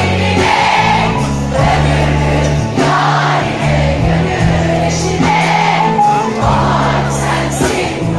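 Live pop music from a band with a female lead singer, played loud through a stage PA with a heavy bass line and cymbal hits.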